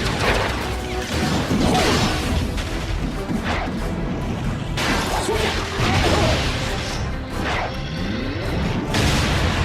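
Action-scene soundtrack: music under a run of crashes, impacts and whooshes, with several sudden heavy hits spread through it.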